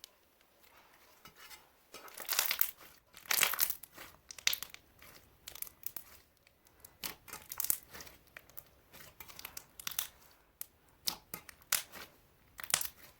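Plastic packaging being crinkled and torn open in irregular bursts as a slime container is unwrapped, loudest a couple of seconds in.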